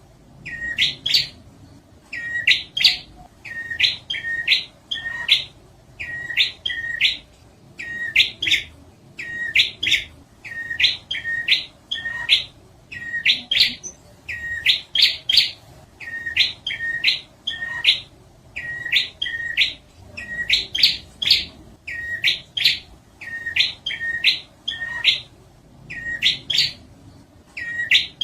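Prinia (prenjak) song from a lure recording: short phrases of two to four quick, rising notes, repeated about every second and a half without a break.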